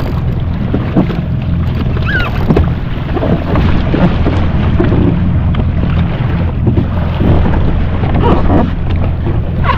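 Jet ski engine running steadily at low speed, with water splashing and rushing along the hull and wind buffeting the microphone.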